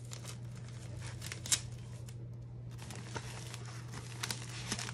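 Crinkling and tearing of the wrapping on a shipping tube being opened by hand, with scattered sharp crackles as a tape strip is peeled off and one louder snap about a second and a half in.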